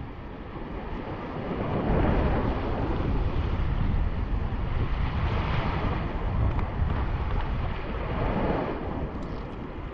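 Small sea waves and shallow water washing and sloshing, with wind rumbling on the microphone; it grows louder about two seconds in.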